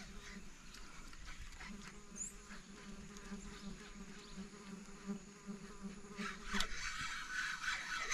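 Insect buzzing, a faint steady drone that breaks off about six and a half seconds in, after which a rustling noise rises near the end.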